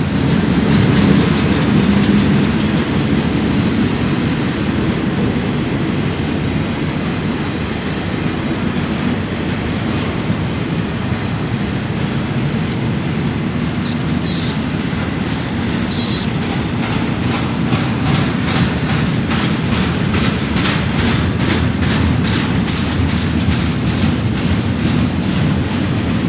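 Freight train cars rolling past with a steady rumble of steel wheels on rail. In the second half a regular clickety-clack of wheels crossing rail joints grows more distinct.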